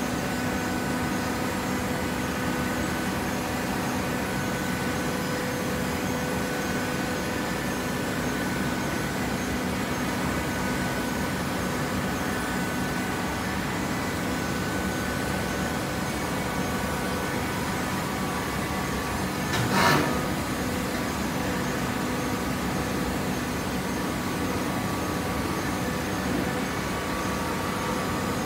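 Hydraulic baler's electric motor and pump running with a steady hum, with a single knock about twenty seconds in.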